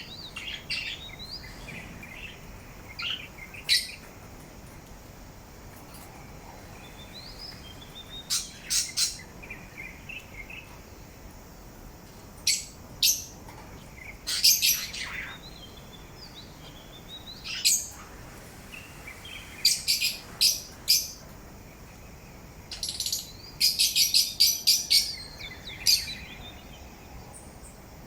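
Parrot chirping and whistling in short, sharp calls with pauses between them, including a quick run of repeated chirps near the end.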